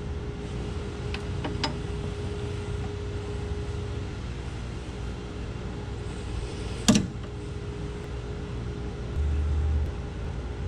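Hand-tool work on a car's front tie rod end: a few light metallic clicks and one sharp metal clink about seven seconds in, over a steady low hum, with a short low rumble near the end.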